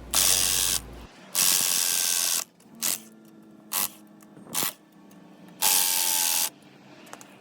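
A wrench working a fastener in bursts, with ratcheting mechanical noise: three longer runs of about a second each and three short ones between them.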